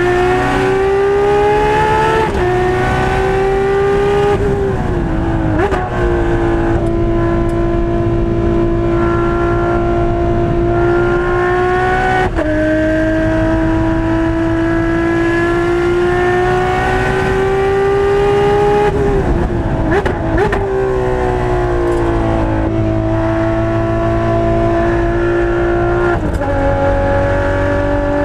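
Ferrari 599XX's V12 engine heard from inside the cockpit at racing speed, its pitch climbing steadily under throttle through each gear and dropping sharply at several gear changes. About two-thirds of the way in comes a cluster of quick revs and drops, as when downshifting for a corner.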